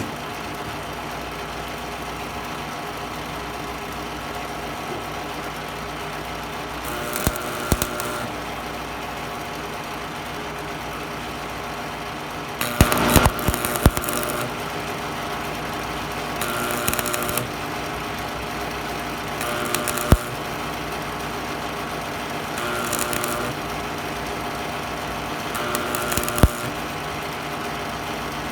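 Miller Thunderbolt 250 stick welder humming steadily, with about six short bursts of electric arc crackle, each a second or so long, as the electrode is struck and short welds are run on thin metal.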